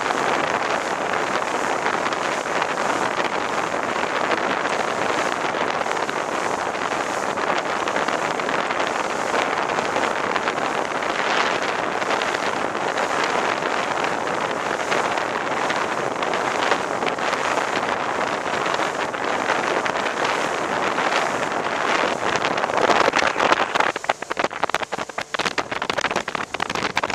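Wind buffeting the microphone and water rushing past the hull of a small rigid inflatable boat running fast under outboard power, a steady loud rush. Near the end it turns gusty and uneven.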